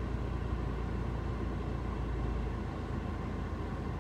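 Steady road noise inside a moving car: a low rumble from engine and tyres with an even hiss over it.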